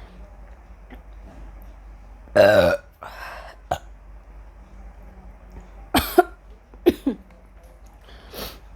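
A woman burping from carbonated cola: one long, loud burp about two and a half seconds in, followed by shorter, sharp sounds near six and seven seconds in.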